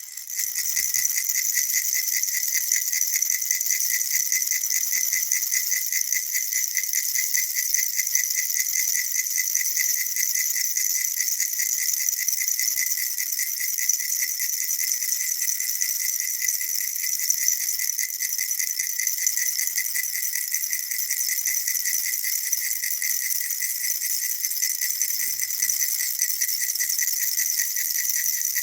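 Baby rattle shaken rapidly and without pause, a dense, even, high rattling that barely changes, with a brief drop right at the start.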